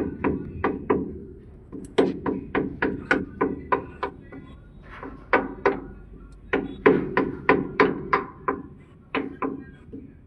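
A hammer striking metal in runs of quick blows, about three to four a second with short pauses between runs, each blow ringing briefly.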